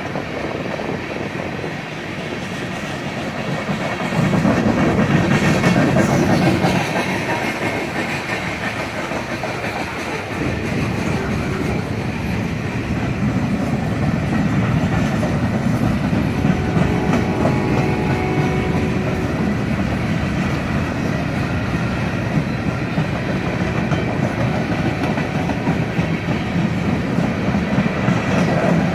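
A train rolling past, its cars' wheels clattering over the rail joints in a continuous run. It gets louder about four seconds in.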